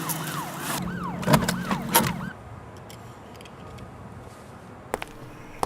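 Police siren in a fast rising-and-falling yelp, cutting off about two seconds in, followed by quiet with a few sharp clicks near the end.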